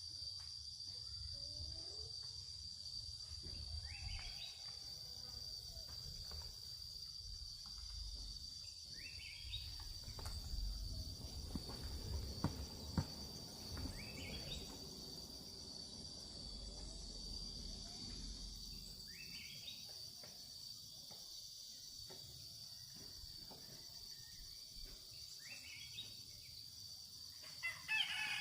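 Steady high-pitched drone of insects such as crickets, with short rising calls repeating about every five seconds over a low rumble. A rooster starts to crow at the very end.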